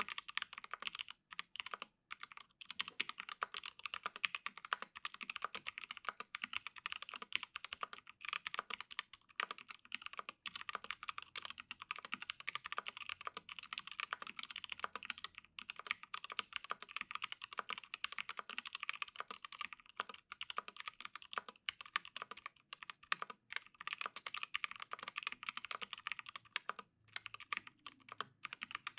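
Continuous fast typing on an Acrylic Alice mechanical keyboard: lubed T1 switches under PBT keycaps, in an acrylic case with an acrylic half plate and no sound dampening. The keystrokes run as a dense stream of clicks, with a few short pauses.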